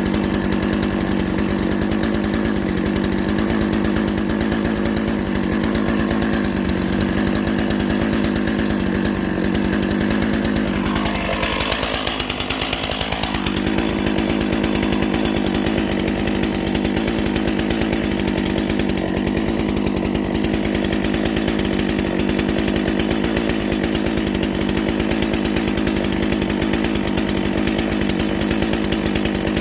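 Stihl MS 461 two-stroke chainsaw running at high revs while ripping cedar lengthwise. Its pitch dips briefly under load a little after ten seconds in, then recovers.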